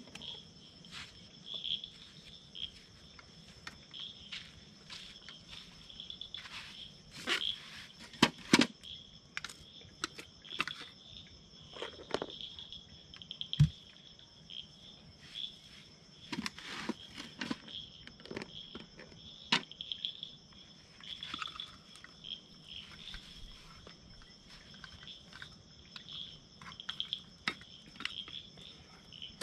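Insects chirring steadily in a continuous high-pitched drone. Scattered clicks and knocks from camp gear being handled come over it, the loudest a couple of sharp knocks about eight seconds in.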